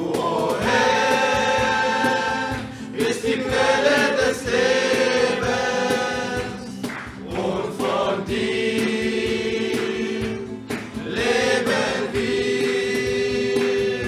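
A choir singing a worship song in long held notes, phrase after phrase with short breaks between.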